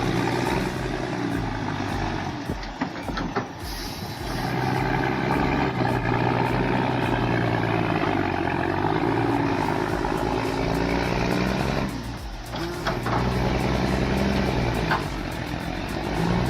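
Heavy truck engine revving up and down under load as it manoeuvres, easing off twice, about three seconds and twelve seconds in, with a short hiss near the first dip.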